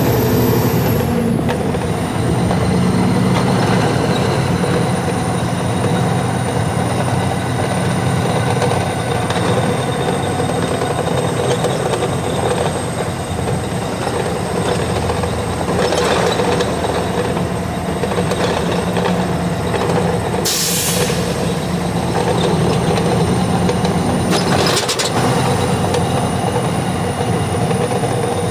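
Heavy vehicle running steadily, a low rumble with a thin high whine, broken by three short hisses about midway, a little past two-thirds and near the end.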